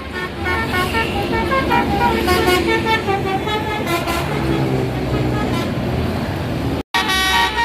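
Bus basuri, a multi-tone musical air horn, playing a melody of short stepped notes over the low rumble of the coach's engine. The sound cuts out for a moment near the end, then another run of horn notes begins.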